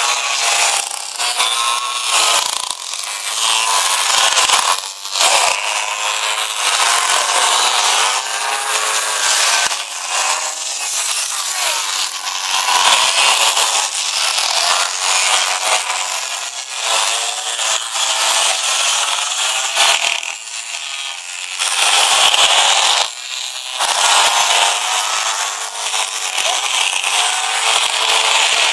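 Small two-stroke pocketbike engines buzzing at high revs, their pitch rising and falling again and again as the riders accelerate out of corners and brake into them.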